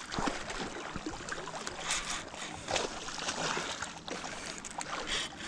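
Hooked pike thrashing at the water's surface as it is reeled in, with irregular splashes over a steady wash of water.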